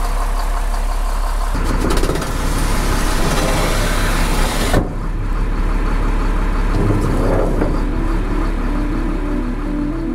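Engine running steadily, a deep hum under a rough mechanical noise that turns duller about five seconds in.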